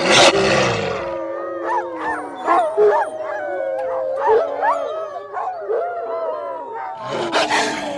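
Wolves howling in chorus: one long steady howl runs under many short yipping cries that rise and fall in pitch. A loud harsh outburst comes at the start and again about seven seconds in.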